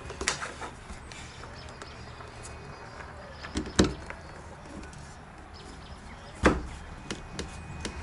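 A screwdriver and small parts handled against the fan's plastic housing and lid arm: a few sharp knocks and clicks, the loudest two about four and six and a half seconds in.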